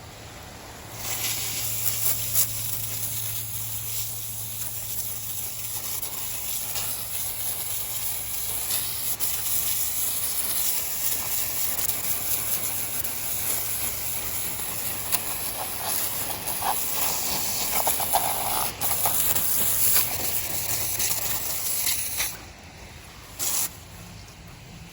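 Wood-Mizer LX55 band sawmill running with a steady low hum, and a loud hiss from about a second in until near the end as the blade cuts through the poplar log.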